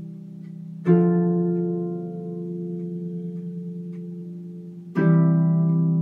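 Harp played in slow plucked chords: one chord struck about a second in and another about five seconds in, each left to ring and fade.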